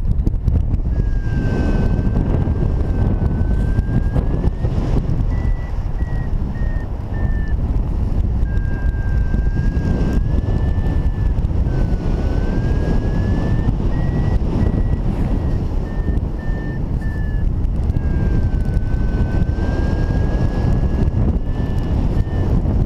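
Heavy wind noise on the microphone of a paraglider in flight, with a paragliding variometer's tone rising and falling in pitch throughout, held steady at its lower pitches and broken into short quick beeps at its higher pitches: the beeping is the vario signalling a climb in lift.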